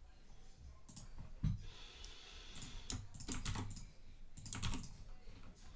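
Computer keyboard being typed on in short bursts of quick clicks, with pauses between the bursts.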